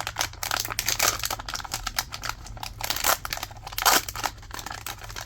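Toy blind-pack packaging being torn and crinkled open by hand: a dense, irregular crackling with a few sharper rips, the loudest a little after three seconds and just before four.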